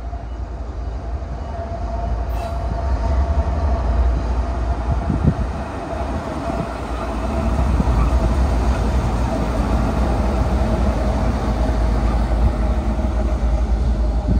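Two CN diesel locomotives running light, with no cars, passing close by: a deep steady engine rumble with a steady whine above it. The rumble gets louder about halfway through as the units come past.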